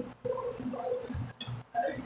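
Soft mouth sounds of a woman eating: a faint closed-mouth hum while chewing, then a short smack about one and a half seconds in.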